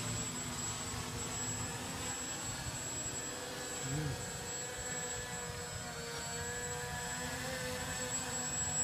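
Radio-controlled model of the Canadair CL-84 tilt-wing VTOL flying low, its motors and propellers giving a steady whine made of several held tones.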